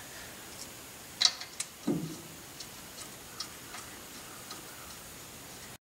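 Light metal clicks and clinks of a brake rotor being slid over the hub's wheel studs and seated against a runout correction plate: two sharper clicks about a second in and a soft thud just after, then fainter scattered ticks.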